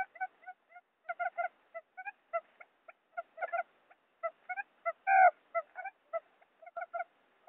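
Quail calls from a trapping lure recording: rapid, short, clipped notes in quick irregular clusters, with one louder, longer note that slides slightly down about five seconds in.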